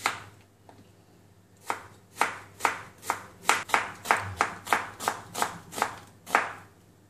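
Kitchen knife slicing an onion on a plastic cutting board. A single knock comes at the start, then a quick run of about fifteen sharp chops at roughly three a second, which stops shortly before the end.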